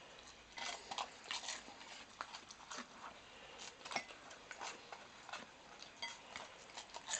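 German Shepherd puppy eating: faint, irregular wet chewing and licking clicks.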